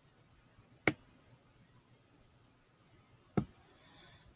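Two sharp computer mouse clicks, about two and a half seconds apart, against a quiet background.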